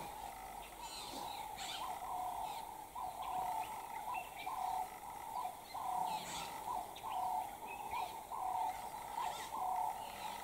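A bird calling one short hooting note over and over, evenly, about two notes a second, with fainter higher chirps from other birds now and then.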